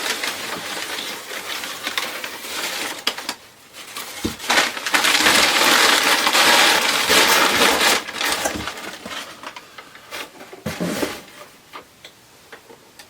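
Packaging being handled and crinkled as a mask is unwrapped: rustling and crackling with scattered clicks, loudest for a few seconds in the middle, then dying down to occasional handling noises.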